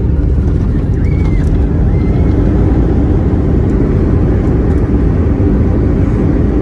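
Cabin noise of an Airbus A321neo's landing rollout on the runway: a loud, steady low roar.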